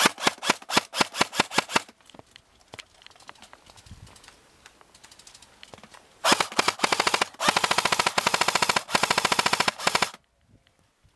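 Airsoft rifle firing. First comes a quick string of about a dozen single shots in under two seconds. About six seconds in come long full-auto bursts, a fast steady rattle in three runs, which stops sharply about ten seconds in.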